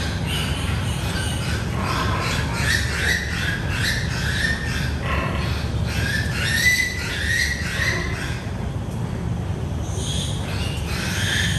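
Piglets squealing: many short, high squeals one after another over a steady low rumble.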